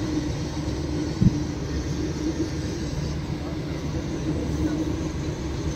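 A long freight train's wagons rolling past on the rails: a steady rumble, with one sharp knock about a second in.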